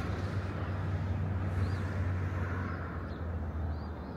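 Outdoor background noise in a parking lot: a steady low rumble, like distant traffic or wind, with a few faint high chirps about halfway through and again near the end.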